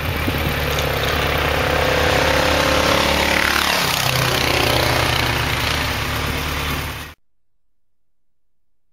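Motorcycle engine running under a loud rushing hiss; its pitch drops and shifts about four seconds in, and the sound cuts off abruptly a few seconds later.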